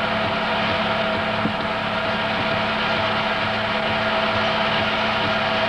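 Steady whir of a running film projector, a constant motor hum with hiss over it.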